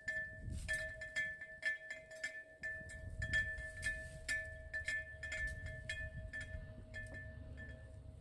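Wind chimes ringing continuously, struck over and over so that a few steady tones keep sounding under quick clinks, with a low rumble joining about three seconds in.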